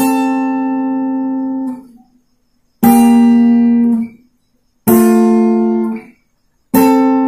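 Acoustic guitar picked slowly, two strings at a time: four separate notes, each ringing for one to two seconds and then muted, with short silences between them.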